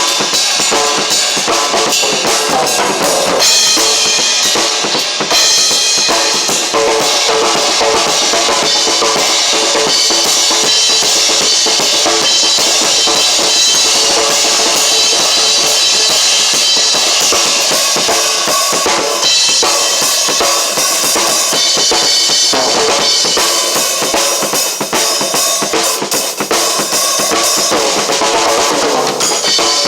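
Drum kit played continuously, a dense stream of fast strokes with hardly a pause.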